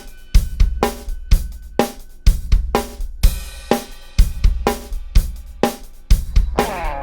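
Background rock music: a drum-kit beat of kick drum, snare and cymbals, about two strong hits a second.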